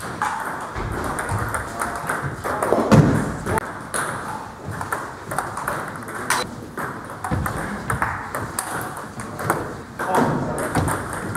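Table tennis ball clicking against bats and the table in quick succession during play, with voices in the background.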